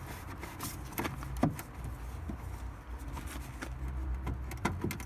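Scattered clicks and knocks of a car's rear tail-lamp housing being worked loose by hand, with a few sharper knocks near the end. A steady low hum runs underneath.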